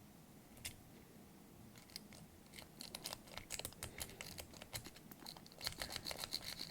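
Metal lock pick clicking and scraping inside a door knob's pin-tumbler lock: a few separate clicks, then rapid scratchy clicking as the pick is rubbed back and forth across the pins, with a thin high tone joining near the end.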